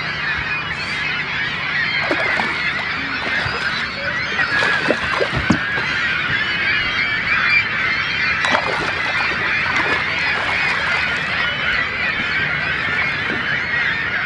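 A large flock of gulls calling continuously, many overlapping cries.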